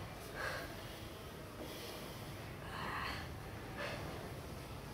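Faint breathing of martial artists kneeling and grappling on tatami just after a throw: a few short, soft puffs of breath spread irregularly over several seconds.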